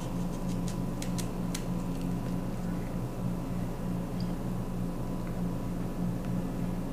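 Steady low room hum, with a few faint clicks in the first second and a half as a handheld nitrate tester is handled with its probe pushed into a carrot.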